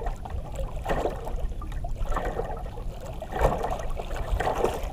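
Water lapping and trickling against the hull of a small outrigger boat, in irregular sloshes over a steady low rumble.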